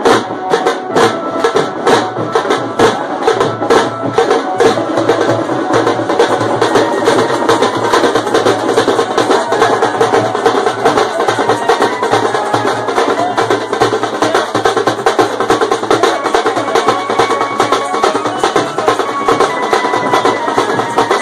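Loud, fast drumming from a procession drum band, stick-beaten drums and a large bass drum pounding out a rapid, steady rhythm of sharp strokes.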